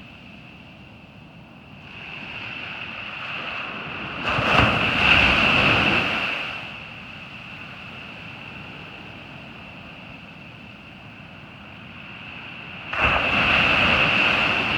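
Ocean surf on a beach: a steady wash of water, with a wave breaking loudly about four seconds in and another near the end.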